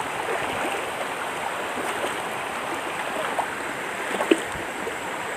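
Shallow river water running steadily over stones, a continuous even rush, with a couple of faint short knocks about three and four seconds in.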